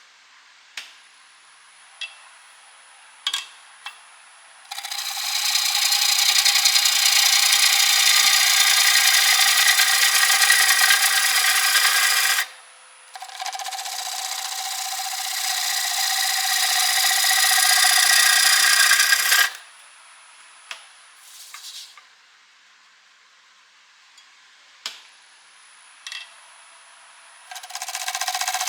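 Bowl gouge cutting into a spinning wet walnut blank on a wood lathe. There are two long cutting passes of dense hiss-like shearing noise, then a third pass starts near the end. In the pauses between passes there is a faint steady whine and a few sharp taps.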